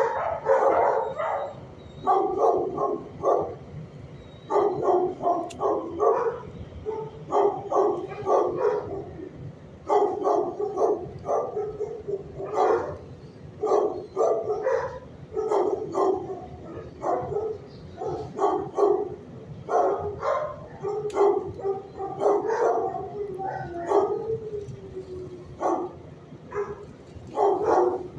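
Several shelter dogs barking repeatedly in overlapping volleys from other kennels, going on all the way through.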